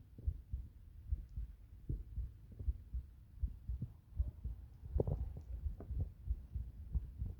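Heartbeat and stomach sounds heard close up: a continuous run of low, uneven thumps, with a louder cluster about five seconds in.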